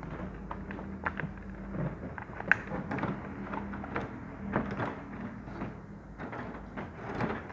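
Kittens eating from a ceramic bowl and plastic trays: irregular small clicks, knocks and rustles, the sharpest about two and a half seconds in, over a faint steady hum.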